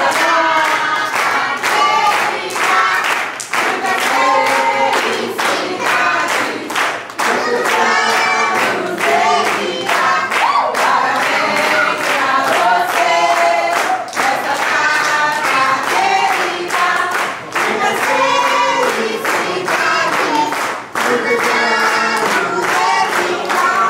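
A crowd of party guests singing a birthday song together, with steady rhythmic hand-clapping keeping the beat throughout.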